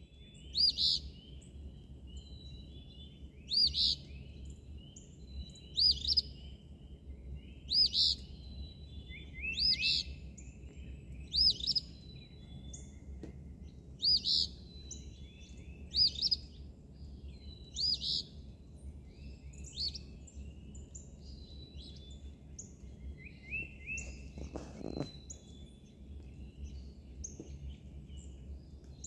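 Eastern phoebe singing its two-part 'fee-bee' song over and over, about one phrase every two seconds, growing fainter in the last third. Other birds chirp faintly behind it over a low steady rumble.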